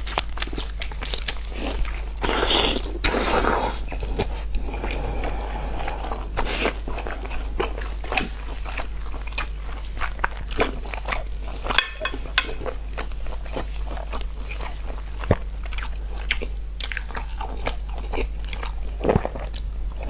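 A person biting and chewing food close to the microphone: a run of crisp, crunchy bites with wetter chewing between them, over a steady low hum.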